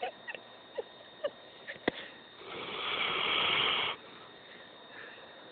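Black Labrador retriever snoring. A few short snuffles and clicks come first, then one long, noisy snoring breath grows louder for about a second and a half and stops abruptly.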